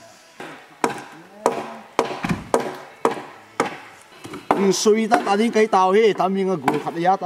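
Repeated chopping strikes on wood, about two a second, each a sharp knock. From about four and a half seconds a wavering chanted or sung voice comes in over the strikes and becomes the loudest sound.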